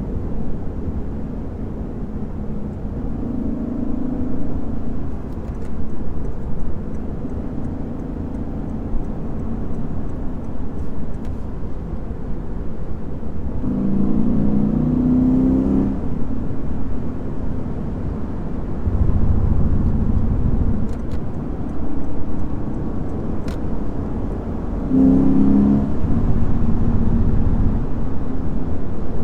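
Lexus IS500 F Sport Performance's 5.0-litre naturally aspirated V8 running under way at road speed over a steady low road and tyre rumble. The engine note swells briefly about halfway through and again near the end.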